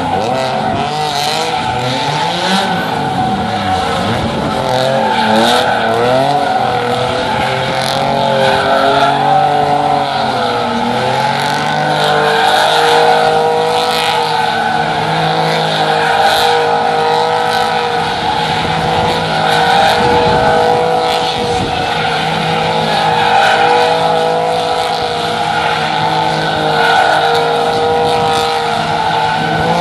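A stunt car's engine held at high revs while its tyres squeal and skid. For the first ten seconds or so the revs rise and fall; after that they hold steady until near the end.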